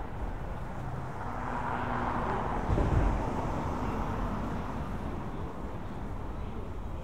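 Street traffic: a vehicle passing close by, its noise swelling over the first two or three seconds and then fading away, with a short low thump about three seconds in.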